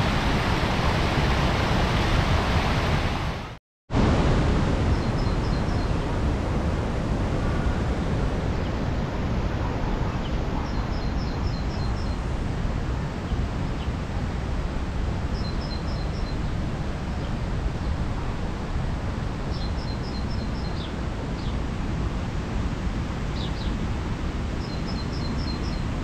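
Water rushing down a small waterfall cascade, a loud steady rush that cuts off sharply about four seconds in. After that comes a softer, steady rush of water, with a small bird repeating a short phrase of quick high notes about every five seconds.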